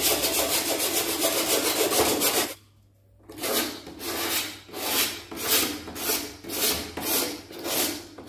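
Utility knife blade scraping the cut edge of a plastic headlight part, taking off the marks left by the grinder. A quick run of short, rapid scrapes, a brief pause about two and a half seconds in, then slower strokes, a little under two a second.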